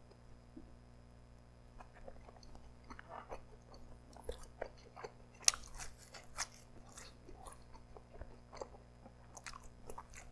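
A person chewing a crusty, double-layered pizza slice: irregular soft crunches and mouth sounds, the sharpest crunch about five and a half seconds in.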